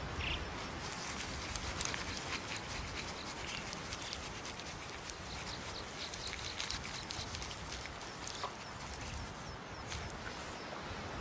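Bearded vultures bathing in iron-oxide-rich earth to stain their feathers red: a dense, irregular run of soft scuffing clicks and rustles.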